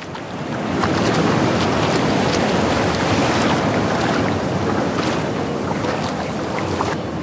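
Sea surf: waves washing onto a sandy beach, a steady rush of water that builds over the first second, with some wind.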